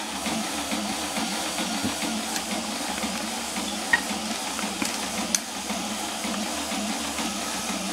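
Small fischertechnik electric motor running steadily as it turns the robot arm, with a couple of faint clicks about four and five seconds in.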